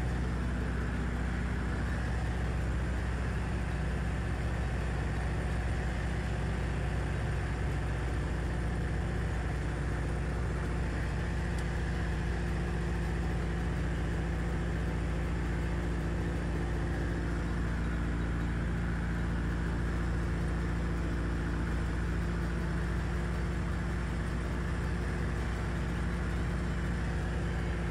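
Steady drone of a CubCrafters Carbon Cub's piston engine and propeller in flight, heard from inside the cockpit.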